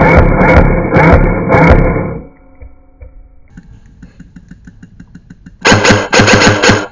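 Airsoft gun firing full-auto: a long burst that stops about two seconds in, then faint rapid ticking, then another burst of about a second near the end.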